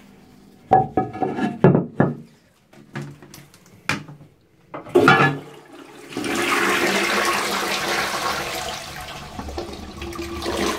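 Sharp clunks and knocks in the first few seconds and a louder clatter about five seconds in. Then a 1979 Royal Doulton Kenton low-level single-trap syphonic WC flushes, with water rushing steadily into the bowl from about six seconds in.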